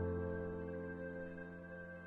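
Soft background music: a keyboard chord, struck just before, slowly fading away.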